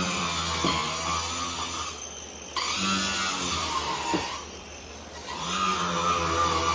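Handheld power tool grinding into drywall and the wood stud edges, its motor pitch dipping each time it bites in and then recovering.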